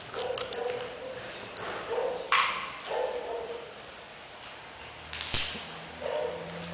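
Czechoslovakian wolfdog puppies playing, giving several short whines and yips. Thin clicks and two sharp knocks come through, the louder knock about five seconds in.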